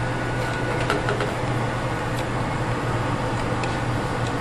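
A steady mechanical hum with an even rushing noise, like a running fan or appliance, with a few faint light clicks.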